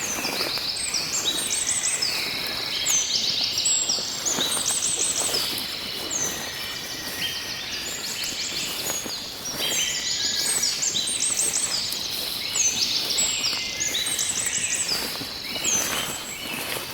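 Several songbirds singing at once: many overlapping short chirps and quick trills, high-pitched and continuous, over a faint outdoor hiss.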